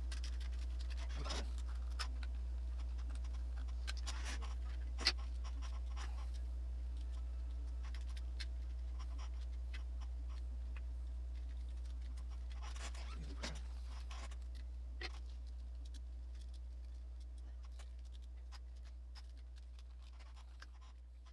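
Scattered scratching and sharp plastic clicks from handling and fitting together the shell and parts of a PS3 DualShock 3 controller, with the busiest handling about a second in, around four to five seconds in and around thirteen seconds in. Under it runs a steady low hum.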